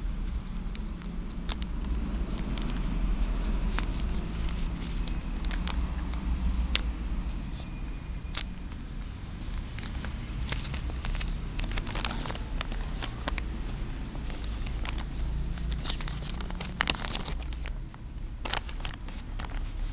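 Brown paper food wrapper crinkling and crackling as it is unfolded by hand, in many irregular sharp crackles, over a steady low background rumble.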